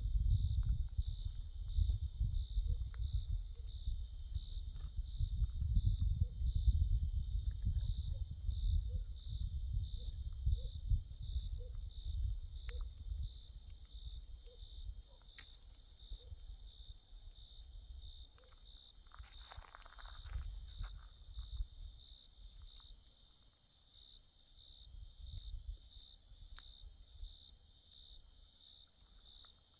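Night insects, crickets among them, chirping steadily in several overlapping high-pitched lines, one of them an even pulsing chirp, over a low rumble that dies down about halfway through. There is a brief rustle about twenty seconds in.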